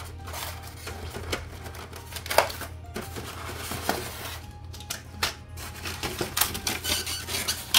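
Bachmann E-Z Track plastic roadbed sections being worked out of a styrofoam packing tray and set down on a wooden floor. The foam rubs and the plastic clicks and clacks irregularly, the sharpest click about two and a half seconds in and a cluster of clacks near the end.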